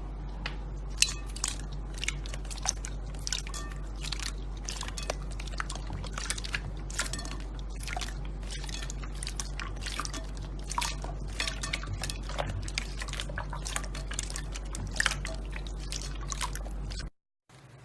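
Slime being squished and worked by hand, giving a dense run of sticky, wet clicks and pops over a steady low hum; the sound cuts off suddenly shortly before the end.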